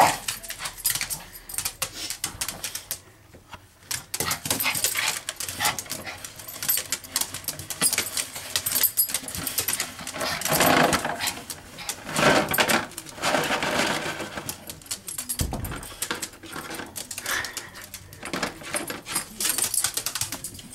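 A dog rooting through bags and boxes of dog treats, the packaging rustling, crinkling and knocking in many short clicks, with louder stretches a little past the middle and dog noises mixed in.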